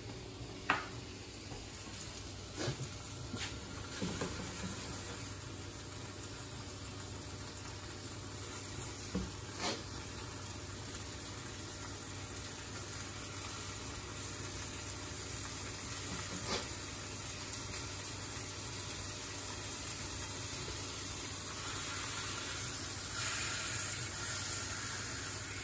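Canadian bacon searing in a frying pan: a steady sizzle that grows a little louder near the end, with a few light knocks in the first half.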